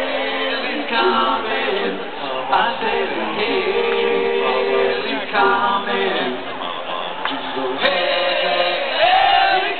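Live concert music heard from the audience: several voices singing together, with the sound of the band in the open-air venue.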